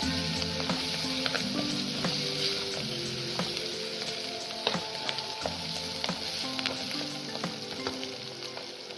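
Sliced shallots, green chillies and curry leaves sizzling as they fry in hot coconut oil in a clay pot, with a spoon scraping and clicking against the pot as they are stirred.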